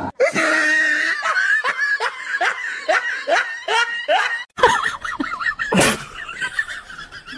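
A person laughing in a steady run of rising "ha" pulses, about two or three a second, for the first four seconds or so. After a short break comes a single loud, sharp sound, followed by fainter laughter-like sounds.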